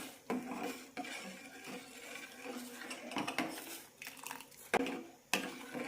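Spoon stirring sago pearls into boiling milk in a pan, with a few light knocks of the spoon against the pan.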